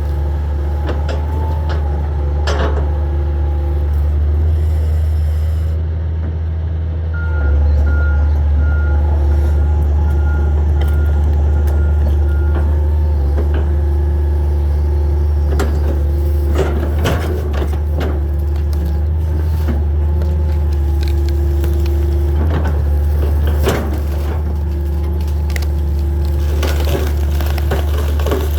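Hitachi 225 excavator's diesel engine running steadily. About seven seconds in it gets louder and a row of short beeps, about one and a half a second, sounds for five seconds. Scattered knocks and cracks of wood and debris being handled.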